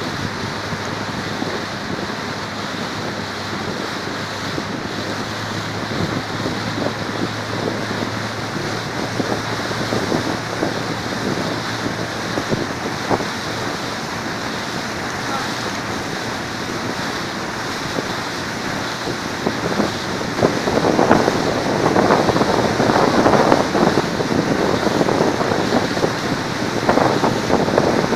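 Wind buffeting the microphone over open sea, with the wash of waves around a small boat. The rushing gets louder and more uneven in the last third.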